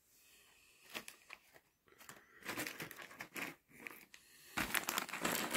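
Clear plastic bag crinkling as it is handled, in crackly bursts that grow louder and denser in the last second, with a few light clicks before them.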